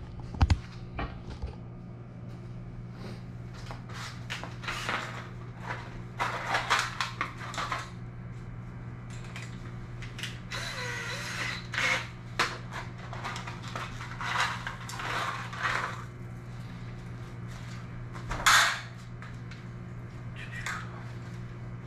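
Tools and hardware being handled and moved about on a garage floor: scattered clicks, clatters and rustles, with a longer scraping rustle about halfway through and a louder clatter near the end, over a steady low hum.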